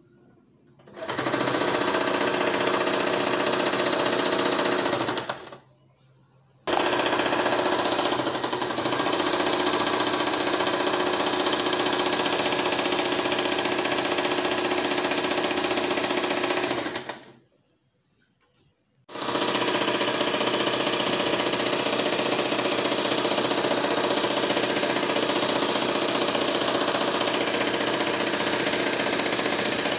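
Domestic electric sewing machine running at a steady speed, stitching a folded fabric strip onto cotton. It runs in three stretches, stopping briefly about five seconds in and again near the seventeen-second mark.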